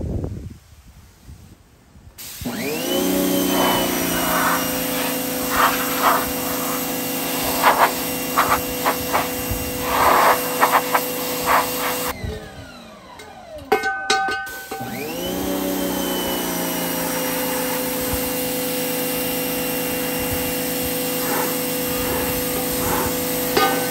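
Pressure washer starting up about two seconds in, its motor rising in pitch to a steady hum, with the water jet blasting rust and old seasoning off a steel pan. It winds down about halfway, a few clicks follow, then it starts up again and runs steadily.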